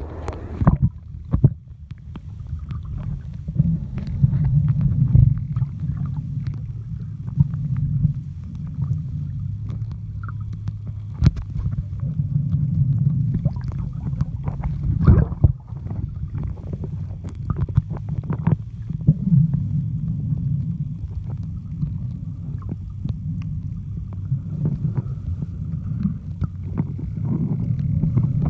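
Muffled underwater sound picked up by a submerged camera: a low rumble of moving water that swells and fades, with scattered sharp clicks and knocks.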